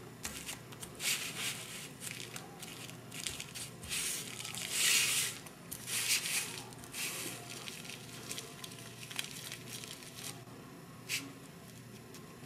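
A plastic zipper-lock bag crinkling and rustling in irregular bursts as it is handled, loudest near the middle, with one short crackle near the end.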